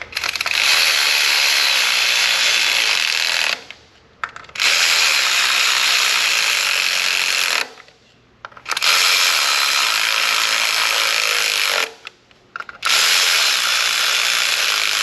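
A cordless power tool runs four times, about three seconds each with short pauses between, driving in the four 10 mm ignition coil mounting bolts one after another.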